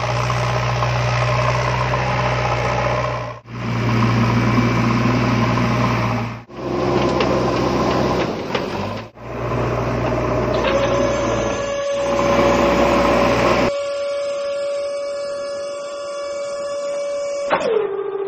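Toy remote-control excavator's small electric motors and plastic gears whirring steadily, stopping and restarting several times. In the second half a steady higher whine comes in, which drops in pitch and cuts off near the end.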